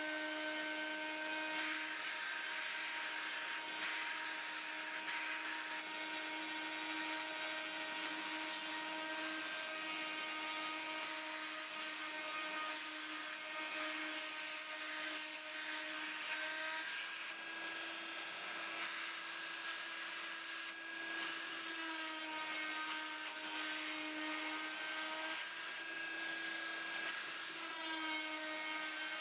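Dremel rotary tool on a Sumpod CNC router running with a steady high whine while milling a part out of a sheet, its pitch shifting slightly a few times as the cutter's load changes. A steady rushing hiss from the cutting and a vacuum hose drawing off the chips runs beneath it.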